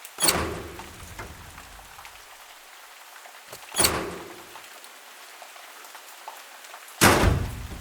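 Three separate impact sound effects, about three and a half seconds apart, each a sudden hit that dies away over about a second, over a steady rain-like background hiss.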